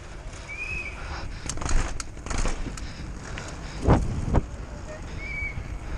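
Downhill mountain bike ridden fast over pavement: wind rushing on the microphone along with tyre noise and the rattle of the bike. Several sharp knocks come as it hits bumps, the loudest about four seconds in, and there are two brief high squeaks, one near the start and one near the end.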